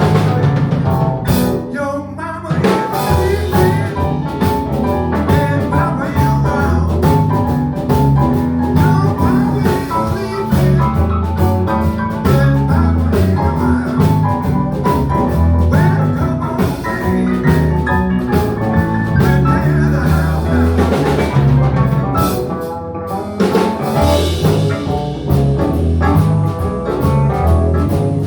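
Live band playing an instrumental blues number, with a drum kit keeping a steady beat under guitar and bass.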